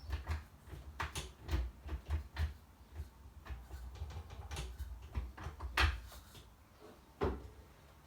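Irregular clunks and knocks of a classic Mini's knobless gear lever being pushed around the gate in search of reverse, with low thuds from the car body.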